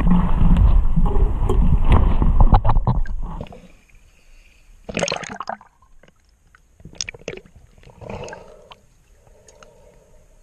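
Underwater camera sound in a pool: loud, muffled water rushing and rumbling as the diver moves, dropping off after about three and a half seconds to quiet, with a few short bubbling and gurgling bursts and a faint hum near the end.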